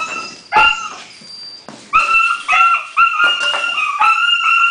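A puppy whining and yipping in a string of high-pitched cries. One sharp cry comes about half a second in, and after a short lull the whines run almost without a break from about two seconds on.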